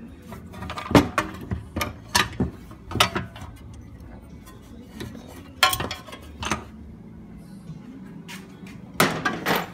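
Sharp metallic clicks and clanks of tools and small engine parts being handled on a workbench: a cluster in the first few seconds, a couple more midway and a quick run near the end. Faint background music runs underneath.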